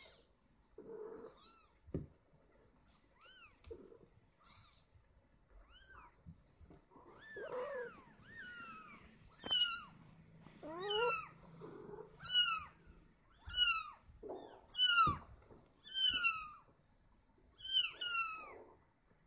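Eleven-day-old kitten mewing: a few soft, scattered squeaks at first, then from about halfway in a steady run of loud, high-pitched cries, each falling in pitch, about one a second.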